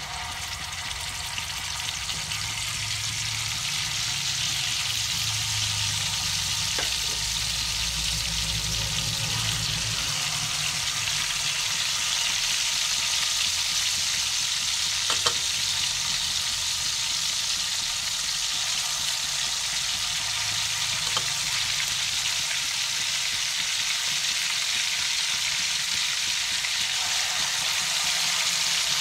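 Marinated lizardfish pieces frying in hot oil in a metal wok: a steady sizzle that builds over the first few seconds as the pieces go in, then holds. A few light clicks sound over it.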